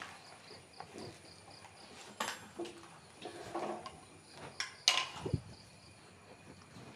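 A few scattered light knocks and clinks from handling the newly fitted steel well door, with one duller thud about five seconds in. Crickets chirp steadily and faintly underneath.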